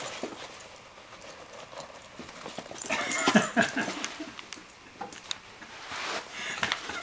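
Dachshund sniffing and scrabbling at a gap behind a speaker cabinet, with scattered scratchy clicks and a loud burst of snuffling and scuffling noise about three seconds in.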